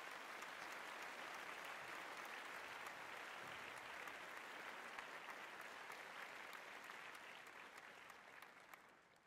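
Applause from many hands, a steady patter of claps that fades away over the last second or two.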